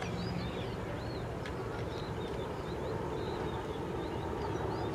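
Steady low engine hum, with small birds chirping short high calls over it throughout.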